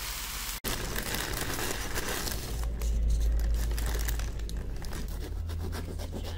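A brief sizzle of meat frying in a pan, cut off about half a second in. Then a paper bakery bag crinkling and crusty bread rolls crackling as they are taken out and cut open, the crackles busiest in the second half.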